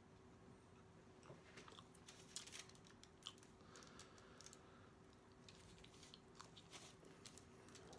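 Faint clicks and crinkles of a taco being handled over a foil-lined tray, then mouth sounds of biting and chewing, all very quiet.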